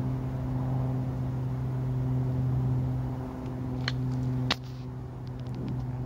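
A steady low mechanical hum. About four and a half seconds in, a single sharp click cuts through it, and the hum is quieter afterwards. A few faint high ticks follow near the end.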